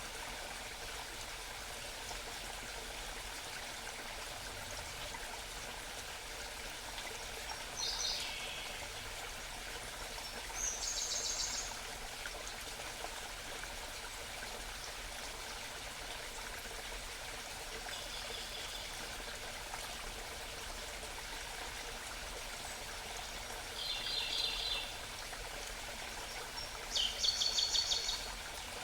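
A small mountain stream babbles steadily, while a songbird sings short, high, rapidly repeated phrases about five times. The loudest phrase comes near the end.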